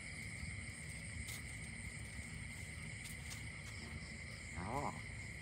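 Steady high-pitched chorus of crickets, one continuous shrill trill that does not change, over a low rumble.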